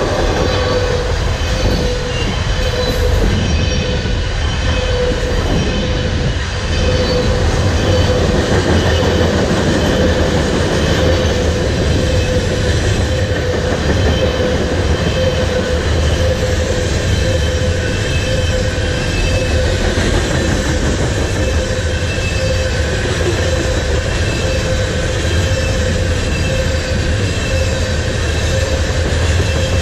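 Covered hopper grain cars of a freight train rolling past close by: a steady, heavy rumble of steel wheels on rail, with a thin, steady wheel squeal ringing over it.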